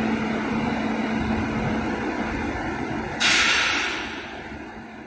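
Indian Railways diesel locomotive running with a steady low rumble and hum. About three seconds in there is a sudden loud hiss of air released from the brakes. The hiss fades over a second or so, and the whole sound dies away near the end.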